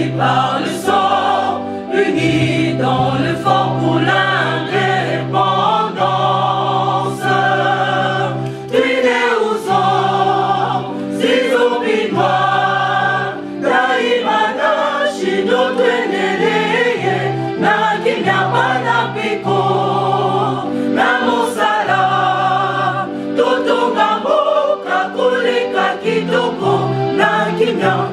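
Music: a choir singing a gospel-style song over long held bass notes.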